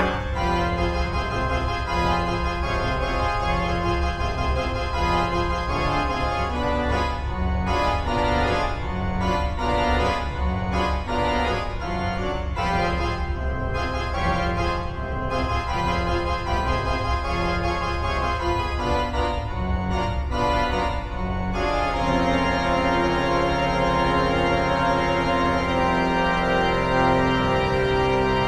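Organ music for the end credits: held, overlapping notes that change about once a second, settling into longer sustained chords about twenty-two seconds in.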